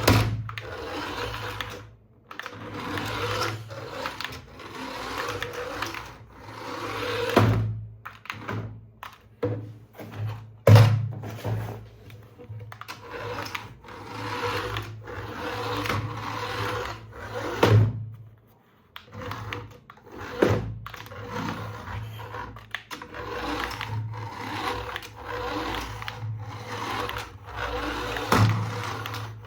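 Small toy electric motor whirring in spells over a steady low hum, with several sharp knocks and thumps from plastic parts being handled.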